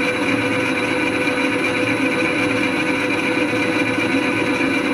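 Metal lathe running steadily, its spindle and gear train giving a constant whine, while the cutting tool chamfers the edge of the metal part in the chuck.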